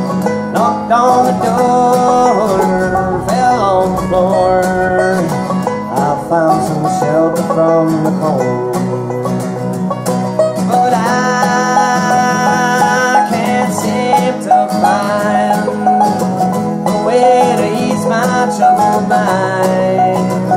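Banjo and acoustic guitar playing a bluegrass tune together, with dense, steady picking.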